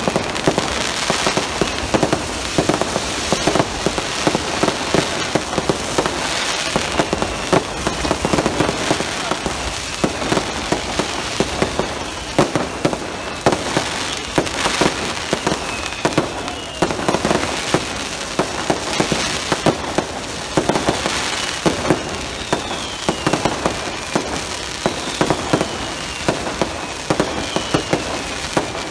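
Fireworks going off continuously in a dense, irregular crackle of pops and bangs, with several short falling whistles in the second half.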